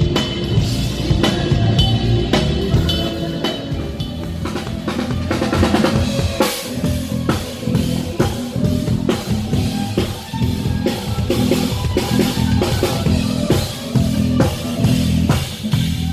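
Live band music led by a drum kit, with kick drum, snare and rimshot hits over low sustained bass notes. About six seconds in the drumming turns into a dense, even run of hits.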